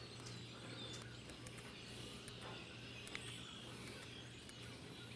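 Quiet background: a faint steady low hum with a few faint bird chirps.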